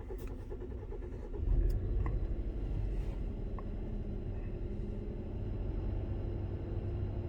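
2016 Hyundai Sonata's four-cylinder engine starting about a second and a half in, then idling steadily while misfiring on cylinder 4, the misfire count climbing fast.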